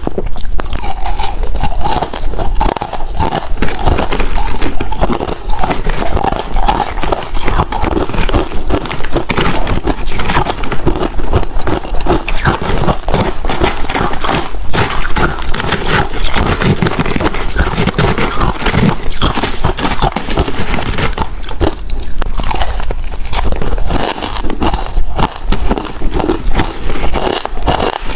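Ice being bitten and chewed: loud, dense crunching and crackling with no pause.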